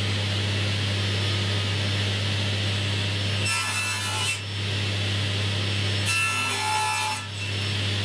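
Laminate boards sliding and rubbing across the laminate base of a crosscut sled, with two scraping swishes about a second long each, over a steady low machine hum.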